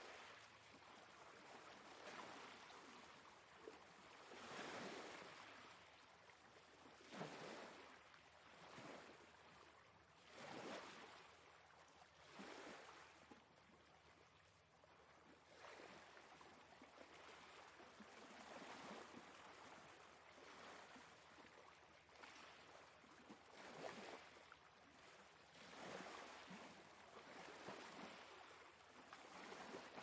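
Faint rush of small ocean waves breaking and washing up a sandy beach, swelling and fading every two to three seconds.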